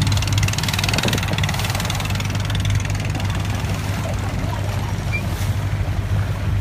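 Motorboat engine running steadily with a low, even drone.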